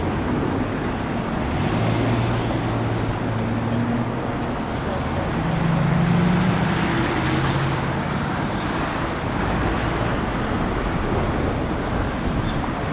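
Steady highway traffic noise from vehicles going past. A vehicle engine's low drone comes in about a second and a half in, shifts in pitch midway and fades out after about eight seconds.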